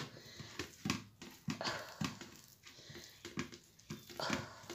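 Hand patting and rubbing wet masala paste onto a raw seer fish steak on a steel plate: a run of soft, squelchy pats, about two a second. A single sharp knock comes right at the start.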